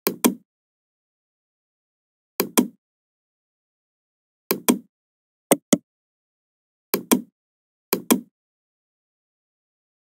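Computer mouse clicking six times at irregular intervals, each click a quick pair of sharp ticks, with complete silence between.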